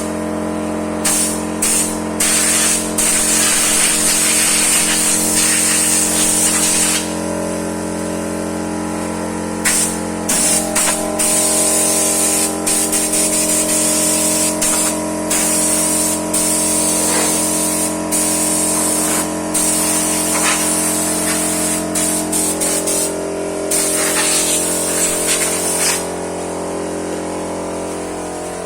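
Oil-lubricated vacuum pump of a Hualian vacuum sealer running with a steady motor hum, while a loud hiss of rushing air drops out and returns several times.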